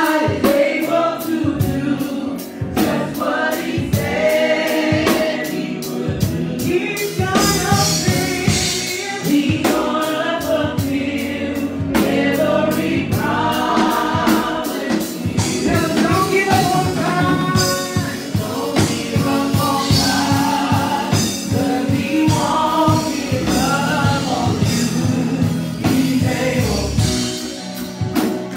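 Live gospel praise singing by a small group of voices on microphones, backed by a drum kit keeping a steady beat with regular cymbal strokes.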